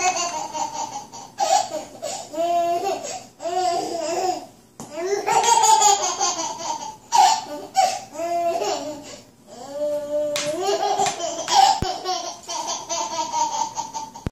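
A baby laughing, with high squeals and giggles coming in repeated bursts.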